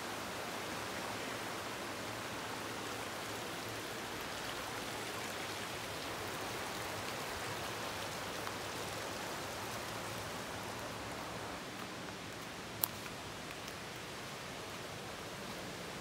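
Steady rush of a forest creek running over rocks, with one sharp click about three-quarters of the way through.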